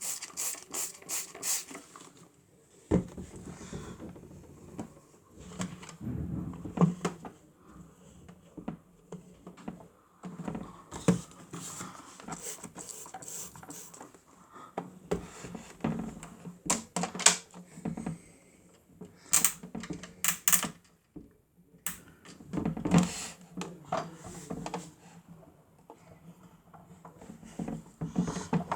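Irregular clicks, taps and scraping of plastic as the Miele W1 toy washing machine is handled, with a few sharper knocks and a faint low hum that comes and goes.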